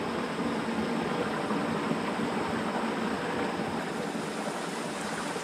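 Shallow rocky stream running over stones: a steady rush of water.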